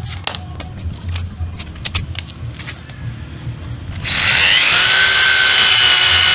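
A few light knocks and clicks, then a power tool runs loudly from about four seconds in with a high whine, cutting off suddenly at the end.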